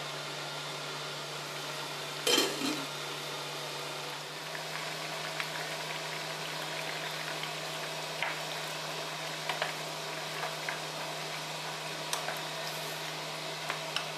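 Braised chicken and chestnuts simmering in a stainless pan with a steady bubbling hiss over a low hum. About two seconds in there is one loud clank as the glass lid comes off. After that a wooden spoon stirs the braise, with light scattered clicks against the pan.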